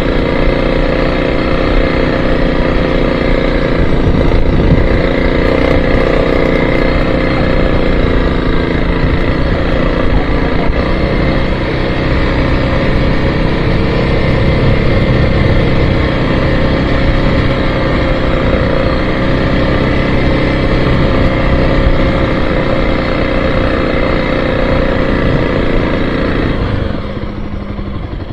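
Motorcycle engine running steadily under way on a dirt track. About a second before the end the engine note drops and quietens as the throttle closes and the bike slows.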